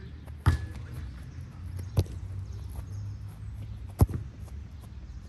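Three sharp thuds, about two seconds apart, over a steady low rumble.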